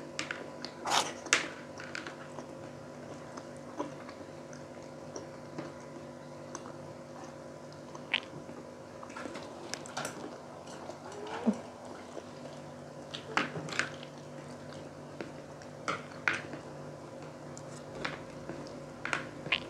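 Close-up eating sounds of fried pork cheek being chewed and bitten: short wet smacks and clicks scattered every second or two. A faint steady hum runs underneath.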